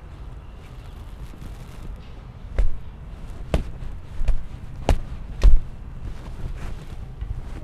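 About five sharp knocks or thumps at uneven intervals through the middle of the stretch, the last the loudest, over a steady low rumble.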